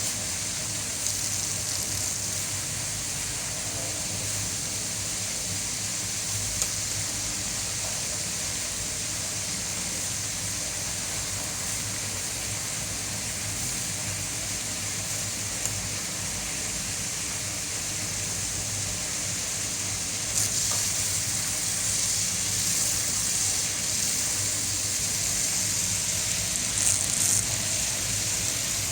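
Steady hiss of water rushing in a water treatment clarifier/filter tank, with a low pump hum underneath. It grows a little louder about two-thirds of the way through.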